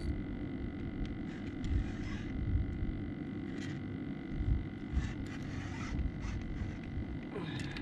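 Steady low rumble of wind on the microphone over open water, with a few faint, irregular clicks.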